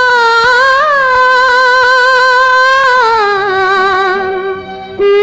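Song music without words: a long held melodic note with a wavering pitch, gliding down to a lower held note about three seconds in, then a brief dip and a fresh note near the end.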